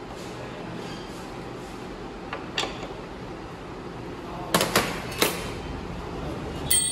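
Sharp metal clinks of a T-handle wrench on the front brake caliper's mounting bolts as they are tightened: a couple of faint clicks midway, three louder ones about two-thirds of the way in, and a ringing click near the end, over a steady background hum.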